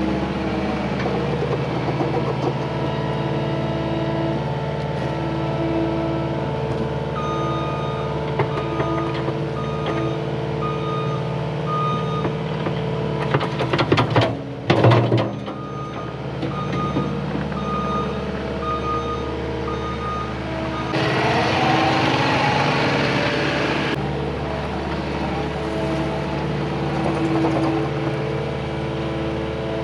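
Cat 259D compact track loader's diesel engine running steadily, with its backup alarm beeping for several seconds while it reverses. A cluster of loud clanks comes about halfway through, and a rushing noise lasts about three seconds later on.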